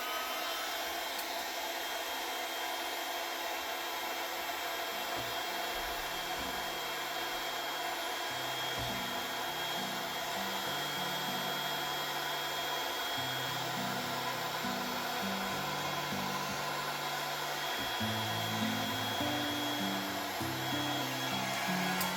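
Heat gun blowing hot air steadily over freshly poured epoxy resin, a constant whooshing hiss.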